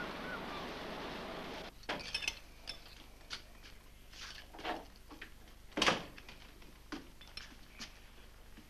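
Steady rush of wind and sea that cuts off after about a second and a half. A door latch then clicks and a door opens, followed by footsteps and light knocks on a wooden floor, with one sharp knock about six seconds in.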